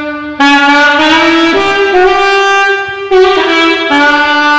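Alto saxophone playing a slow melody phrase of separate held notes, with a couple of brief breaks between them.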